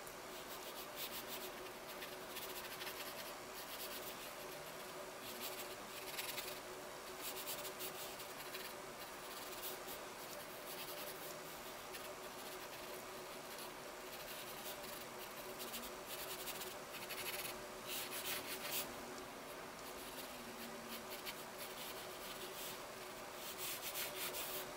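Graphite pencil sketching on drawing paper: light scratching strokes that come in short, irregular runs.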